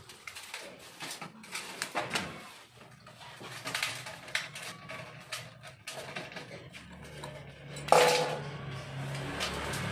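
Small metal carburetor parts and hand tools clicking and clinking as a scooter carburetor is taken apart, with one louder sharp knock about eight seconds in and a low steady hum coming in near the end.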